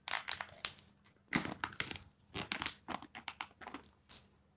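Clear plastic lid of a disposable takeaway food bowl being prised off, crinkling and crackling in several bursts as it flexes and pops free of the rim.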